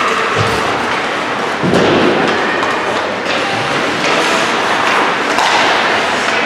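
Ice hockey play in an echoing rink: a steady wash of skates cutting the ice, with scattered knocks of sticks and puck and a heavier thud just under two seconds in, typical of the puck or a player hitting the boards.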